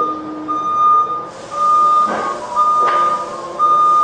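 A vehicle's reversing alarm beeping, a single high tone about once a second, with two short knocks about two and three seconds in.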